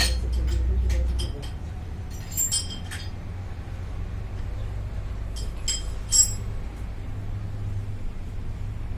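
Light metallic clinks of metal pieces being handled, a cluster in the first three seconds and a few more about six seconds in, over a low steady hum.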